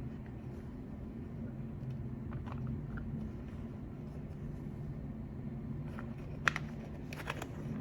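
Steady low electrical hum of the room, with a few faint clicks and one sharp click about six and a half seconds in, followed by a couple more handling clicks near the end.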